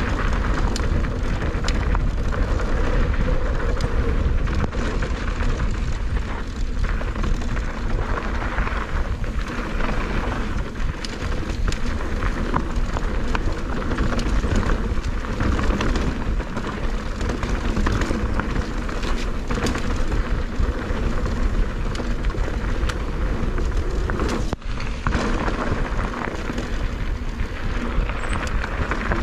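Mountain bike riding fast down a dry dirt and gravel trail: knobby tyres rolling and crunching over loose stones, with rattling from the bike and wind rushing over the microphone.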